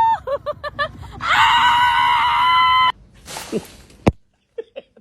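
A quick run of short high squeaks, then one long, loud, high-pitched scream held for about a second and a half. A brief rustle and a sharp click follow.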